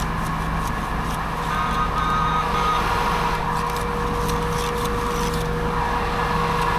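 Heavy diesel machinery running steadily: truck engines and concrete pumping gear at work, with a faint whine coming in about a second in.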